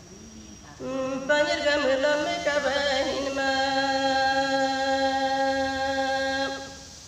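A woman's solo voice singing a traditional Galo chant, unaccompanied. It comes in about a second in, wavers through a short phrase, then holds one long steady note that stops about half a second before the end.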